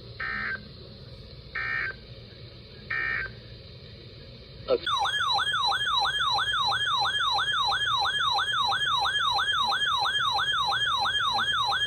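Three short buzzing EAS data bursts, the end-of-message tones that close an alert. About five seconds in, an electronic alert tone starts and warbles rapidly up and down, about three sweeps a second, like a siren.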